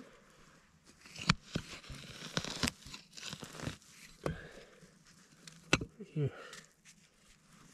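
A metal digging tool scraping and prying through forest soil, pine needles and duff as a matsutake mushroom is dug out, with crunching and tearing as it is pulled loose and several sharp clicks along the way.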